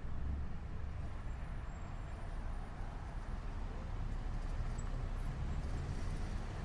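Night city street traffic heard from a second-floor window: a steady low rumble of passing cars, buses and trucks.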